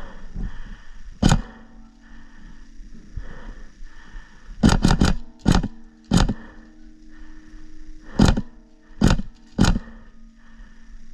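Airsoft guns firing single shots: about ten sharp cracks at uneven gaps, with a quick group of three near the middle. A faint steady hum runs underneath.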